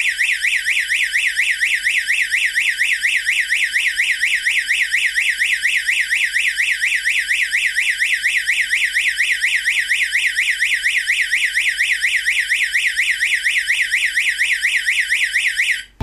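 Electronic siren of a security alarm's siren-strobe unit sounding a loud, rapid high-pitched warble, set off by a mains power cut as a power-failure alarm. It cuts off abruptly near the end as the alarm switches itself off after its timed run.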